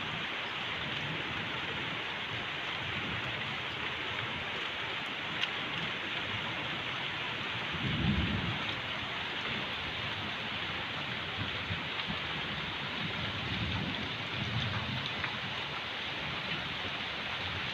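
Steady hiss of light rain falling on a garden, with low rolls of thunder: the loudest about eight seconds in, and more rumbling between about eleven and fifteen seconds.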